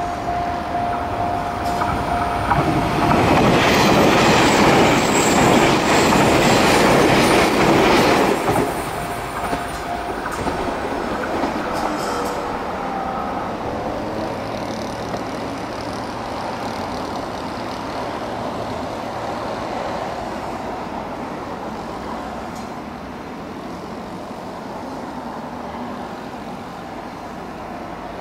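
381 series Yakumo limited express electric train passing close by on the rails, loudest for about five seconds a few seconds in, then fading steadily as it runs away down the line.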